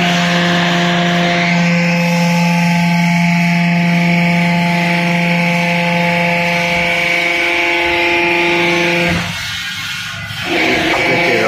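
Hydraulic deep-drawing press's pump and motor running under load while pressing a stainless steel sheet into a sink, a loud, steady hum with several steady tones. About nine seconds in the sound drops away for a second or so, then picks up again.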